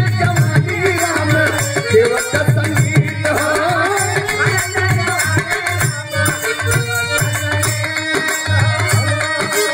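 Live birha folk music: a man singing over a hand drum beat. The voice drops out about six seconds in, leaving the drum and held instrumental notes.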